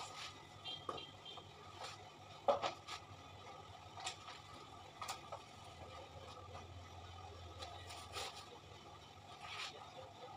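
Quiet handling noises on a work counter: scattered light clicks and soft knocks, the loudest about two and a half seconds in, over a low steady hum.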